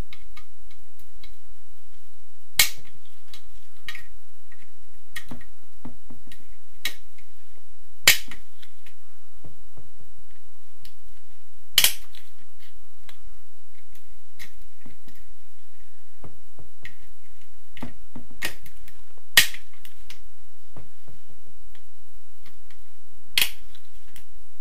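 Oil pan bolts on a Honda VFR800 engine being broken loose with a 1/2-inch drive ratchet and 10 mm socket: a series of sharp cracks a second to several seconds apart as the bolts let go, with fainter clicks between them.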